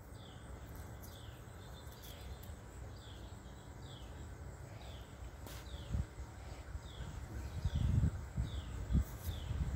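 Outdoor background with a short, high, falling chirp repeating steadily, a bit faster than once a second. Low thumps come near the end.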